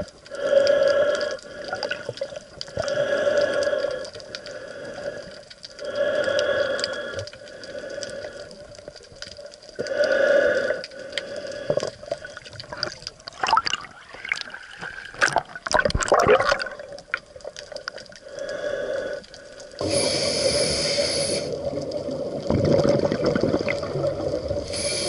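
Scuba diver breathing through a regulator underwater: a short hiss of inhalation every few seconds, a crackle of exhaled bubbles about halfway through, and a longer, louder rush of bubbles near the end.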